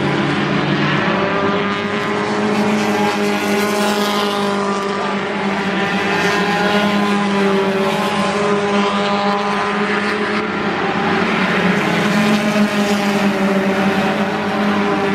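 A pack of four-cylinder stock cars racing round a short oval, several engines running hard together in a steady drone. It grows a little louder near the end as the cars pass close by.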